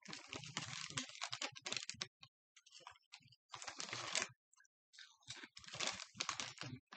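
Crinkling of a potato-chip bag being handled and rummaged in for chips, in three spells with short pauses between them.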